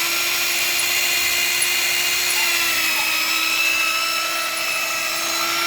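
Electric drill running at a steady speed, its motor giving a whine on one even pitch with overtones.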